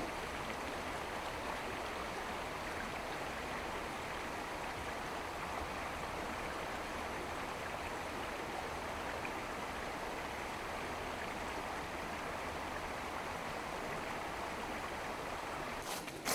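Steady, even rushing noise with no change in level, with a few sharp clicks right at the end.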